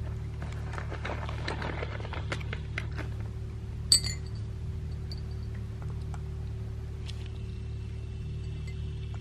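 Small hard cat treats dropping into a white ceramic bowl: one sharp, ringing clink about four seconds in, with a few faint clicks before it and a steady low hum underneath.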